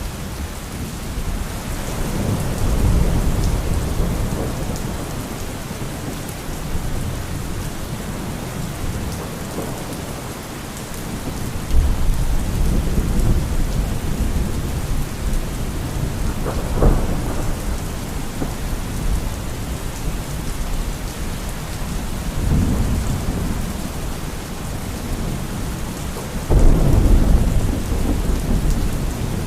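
Steady rain with rolling thunder. Several low rumbles build and fade; one starts suddenly about twelve seconds in, a sharp crack comes a few seconds later, and a loud clap breaks near the end.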